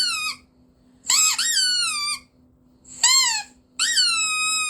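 Squeaky toy squeezed over and over, giving long high squeaks that each swoop up and then slide down in pitch. The last squeak is held longest.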